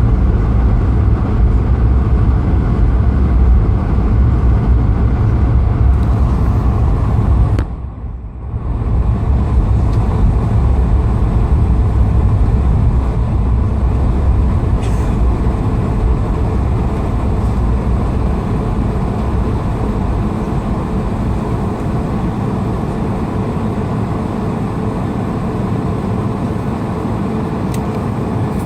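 Steady, loud low rumble of an Airbus A220-300's Pratt & Whitney PW1500G geared turbofan engines and airflow, heard inside the passenger cabin. About eight seconds in it briefly dips and goes muffled for about a second, then runs on steadily.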